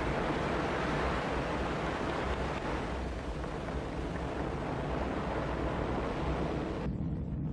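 Ariane 5 rocket at liftoff: a steady, deep roar of its engines and solid boosters. Near the end the roar suddenly loses its high end, leaving a low rumble.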